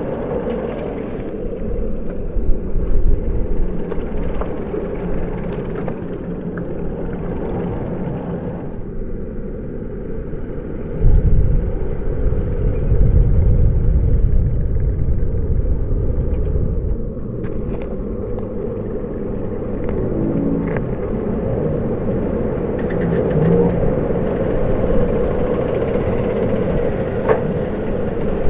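Wind buffeting and road rumble on a bike-mounted action camera riding in a bunch of racing cyclists, with a heavier low rumble of wind for several seconds in the middle.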